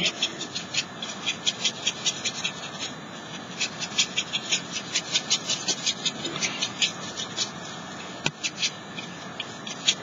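A paintbrush scratching across watercolour paper in quick, light strokes, a few a second, as colour is worked into a paper cut-out.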